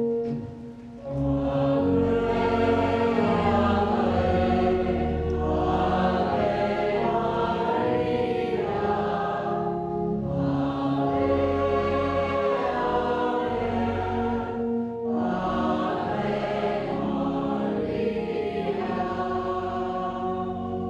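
A choir singing a hymn in several parts, in sung phrases with short breaths about ten and fifteen seconds in.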